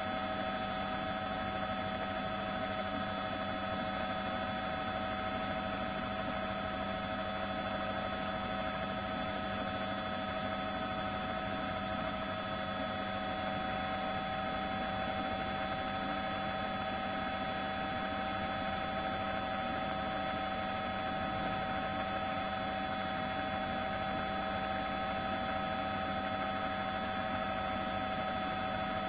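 Steady hum with a hiss underneath and several fixed whining tones, unchanging throughout.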